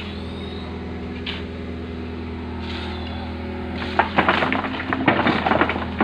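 A machine's steady low hum, joined about four seconds in by a dense run of sharp knocks and clatter that gets louder.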